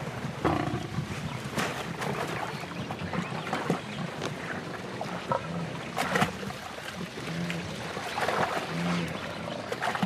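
Lioness growling as she wrestles a wildebeest down in a shallow, muddy creek, with scattered sudden knocks and splashes from the struggle.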